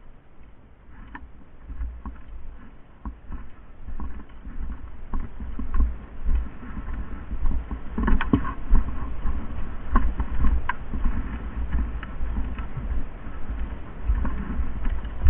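Irregular rustling and faint clicking over a low rumble, growing louder from about four seconds in, with a few sharper clicks around eight and ten seconds.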